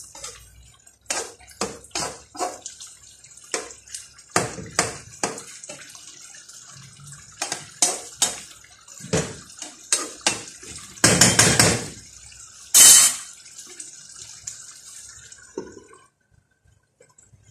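Slotted spatula stirring a simmering chicken and potato stew in a frying pan: repeated clicks and scrapes against the pan over faint bubbling liquid, with a louder clatter about eleven to thirteen seconds in.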